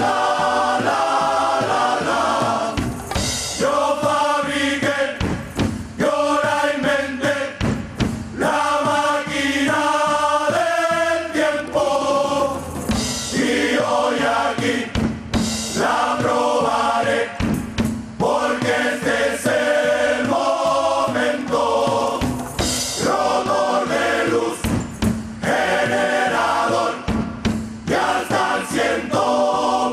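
A Canarian carnival murga performing: a large chorus singing a song together in harmony, backed by drums.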